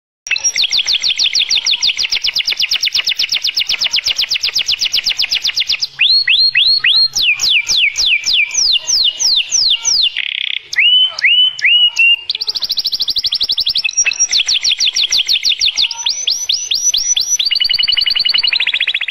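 Domestic canary singing loudly. A long fast trill of rapidly repeated notes starts a moment in, gives way to a run of slower down-slurred whistles, and then fast trills return.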